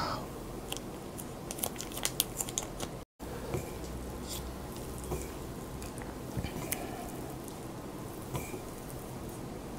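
A plastic sauce packet crinkling as it is squeezed, then wooden chopsticks tossing and mixing sauce-coated Peyang instant yakisoba noodles on a plate, with soft squishing and scattered light clicks.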